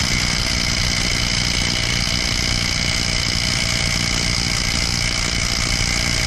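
Makita XDT13 18-volt cordless impact driver hammering a truck's wheel lug nut tight, its rapid impacts running as one steady, unbroken buzz with a high whine.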